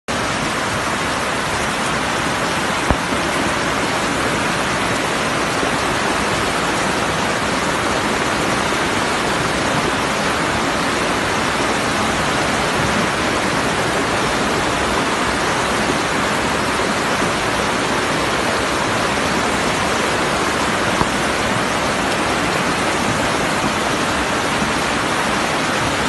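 Muddy flash-flood water rushing in a torrent, a loud, steady roar of water, with one brief knock about three seconds in.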